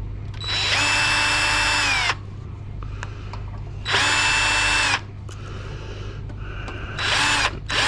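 Power drill run in four short bursts, each whining up to speed and winding down as it stops, the last two close together near the end: screws being driven out of the computer.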